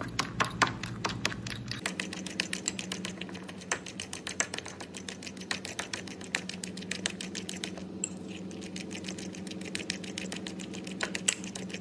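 Metal spoon stirring thick oat batter in a glass bowl, its rim clinking against the glass in a rapid, irregular run of clicks, several a second.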